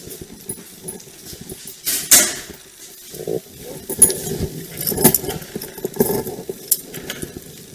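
Handling noise: rustling with scattered light metallic clinks and knocks, and a louder rustle about two seconds in.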